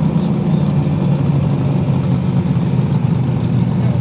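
Alcohol-burning dragster engine idling steadily, a loud, even low rumble with no revving.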